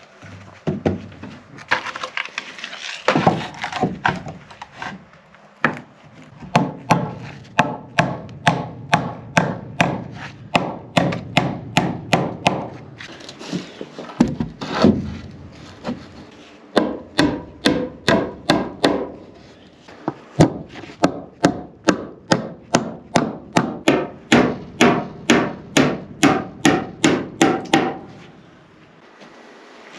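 Hammer blows on wood, about two a second in long runs broken by short pauses, as nails are driven into timber.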